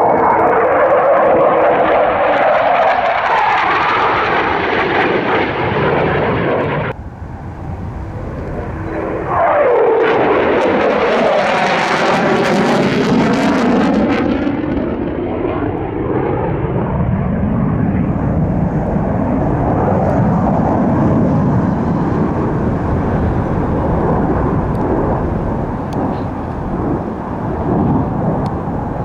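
Airplane flying past with a loud roar that sweeps in pitch as it goes by; it cuts off abruptly about seven seconds in, and a second loud pass follows a couple of seconds later and slowly fades away.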